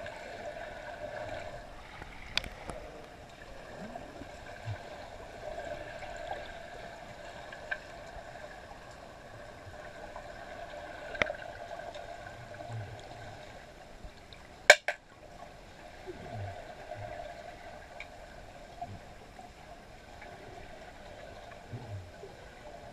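Underwater sound in a swimming pool: a steady two-note hum with water noise, broken by scattered sharp clicks, the loudest about fifteen seconds in.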